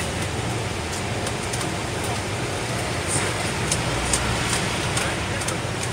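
Road traffic heard from a moving sightseeing bus: a steady wash of city traffic noise over the low, even hum of the bus's engine.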